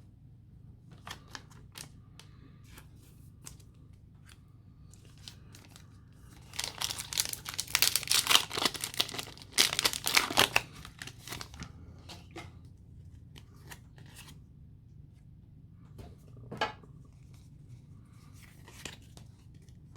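A Pokémon booster pack's foil wrapper being torn open and crinkled: a loud stretch of tearing and crinkling of about four seconds in the middle, with light ticks and rustles of cards being handled before and after it.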